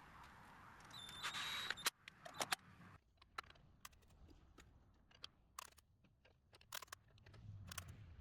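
A brief high whir about a second in, then scattered light clicks and taps of hardware being handled at the door.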